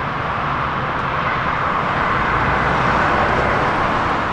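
Steady jet engine noise from airliners, a continuous even rush with a low rumble under it, growing a little louder about three seconds in.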